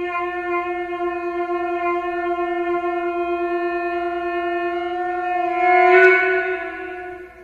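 A conch shell (shankh) blown in one long steady note. It swells louder about six seconds in, then fades out just before the end.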